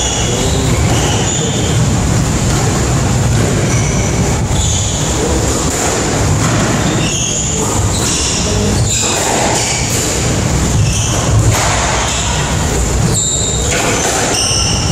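A squash rally: rubber-soled court shoes squeaking on the wooden floor in short high chirps, with sharp knocks of racket and ball against the walls, over a steady low rumble.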